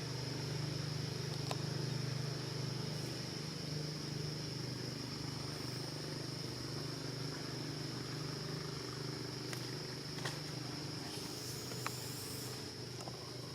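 Steady high-pitched insect drone over a low steady hum, with a few faint clicks.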